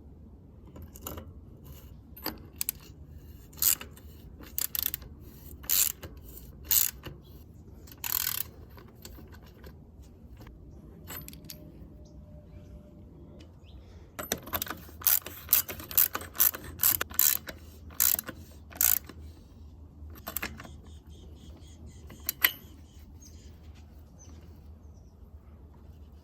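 Irregular sharp metallic clicks and clacks of bicycle parts and tools being handled and fitted, in two bursts of work with a short lull between.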